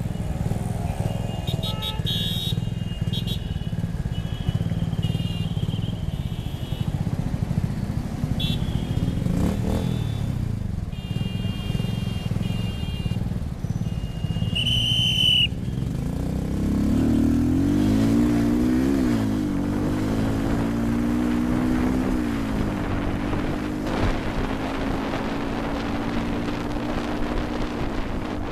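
Stop-and-go road traffic: engines idle with a steady low rumble while several vehicle horns sound, the loudest a short blast about halfway. After that an engine speeds up, its pitch rising and dipping as it pulls away through the gears, then runs steadily.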